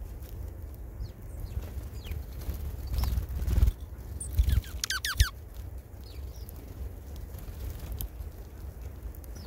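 Small birds calling: scattered short chirps and, a little past the middle, a quick run of about six sharp descending notes, over a low rumble.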